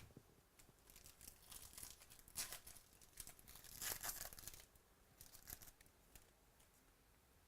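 Trading-card pack wrapper being torn open and crinkled, in several bursts of rustling over about four seconds, loudest around the middle.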